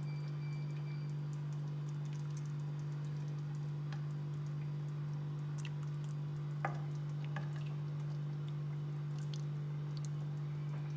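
A steady low hum with a few scattered light clicks and taps, the sharpest about two-thirds of the way through.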